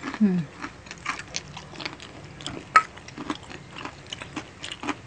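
Close-miked eating sounds of people chewing and biting food with their hands: wet mouth smacks and small clicks, with a short hum right at the start and one sharp click, the loudest sound, about halfway through.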